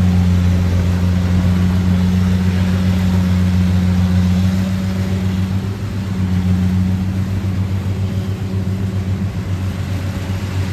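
Rice combine harvester's engine running steadily under load, a constant low drone that eases slightly about halfway through.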